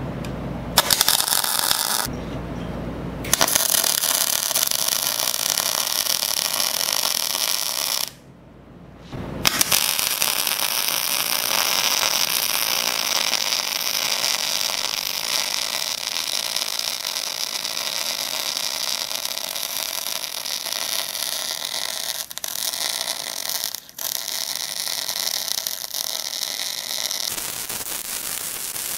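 MIG welding arc in spray-arc transfer on steel plate: a steady, hot hiss. It runs in three beads, breaking off for about a second at around two seconds in and again at around eight seconds in.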